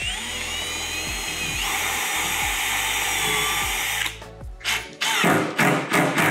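Cordless drill boring a pilot hole through a plywood panel: the motor whines up to speed and then cuts steadily for about four seconds before stopping. Near the end comes a quick series of short bursts as a cordless impact driver drives a screw into the board.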